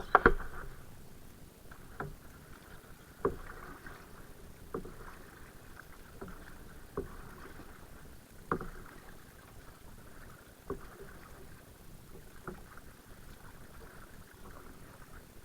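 Kayak being paddled on a river: a paddle stroke with a short knock about every one and a half to two seconds, with water swishing in between. The loudest knock comes right at the start.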